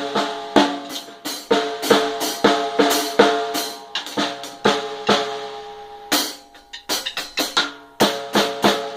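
A drum kit struck by a small child, single hits about twice a second, each with a ringing tail. After a short pause, a quick flurry of hits, then the steady hitting resumes near the end.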